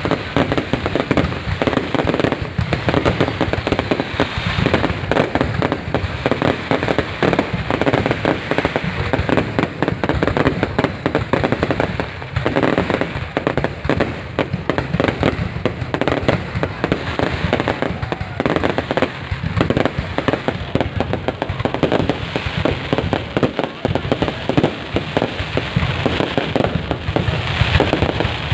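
Fireworks display: a dense, continuous barrage of bursts and crackling, many pops a second without a break.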